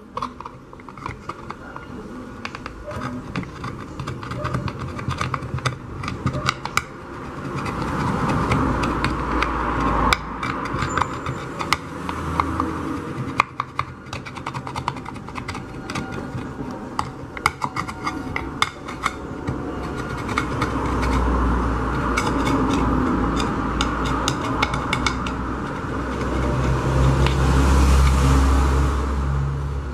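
Hand deburring of a freshly drilled valve hole in a pressure-cooker lid: rough scraping of a tool on metal, broken by many sharp clicks and knocks of metal against metal and the workbench.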